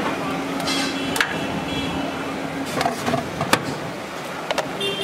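Steady street traffic noise with a low hum, broken by a few sharp clicks of a metal spatula and plate being handled.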